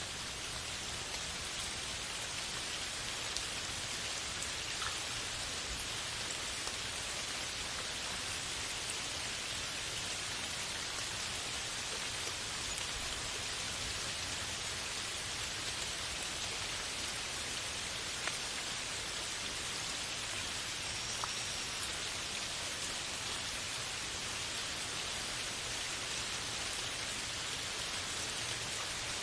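Steady downpour of rain falling on a forest canopy: an even hiss of rain on leaves, with scattered single drop ticks.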